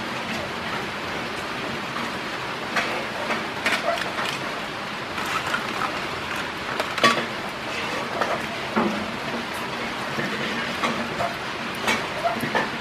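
Boiled eggs being peeled by hand over a metal bowl of water: light splashing and dripping, with scattered small clicks and crackles of eggshell, a sharper tap about seven seconds in.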